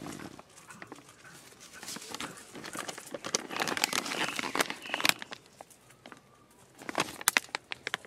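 Fabric and plastic rustling as a hand rummages through a soft canvas cooler bag stuffed with plastic-wrapped food, followed by a few sharp crinkles of a plastic food package being pulled out near the end.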